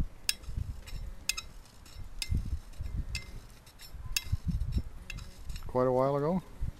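Hand scraper strokes on a babbitt bearing half-shell, about one sharp scrape a second, as the bearing is scraped in to fit its axle; the scraper chatters a little, leaving a rough cut. Near the end, a brief voice-like hum.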